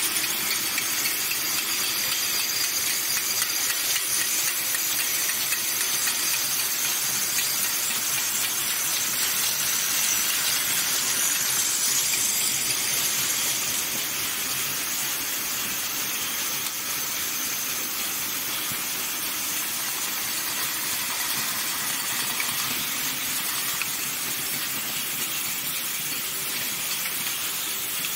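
Aluminium ROPP cap knurling and liner wadding line running, heard as a steady hiss that drops slightly about halfway through.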